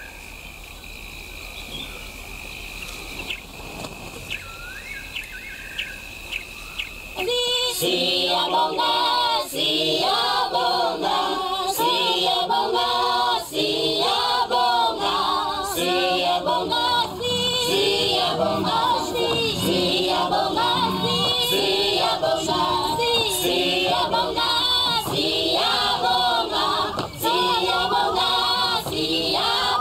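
Quiet night ambience with a steady high insect trill and a few chirps, then from about seven seconds in, choral music with voices singing in harmony takes over and stays loud.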